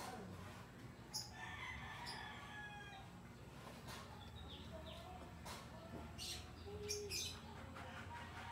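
A rooster crows once about a second in, a single call of nearly two seconds that falls slightly in pitch. A few short squeaks and light clicks follow later.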